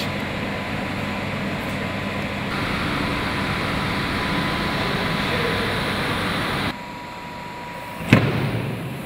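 Steady rushing background noise, then a single sharp thud about eight seconds in as a trials bike hits the wooden ramp.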